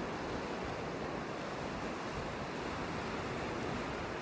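Steady wind and sea waves washing onto the shore, with wind noise on the microphone.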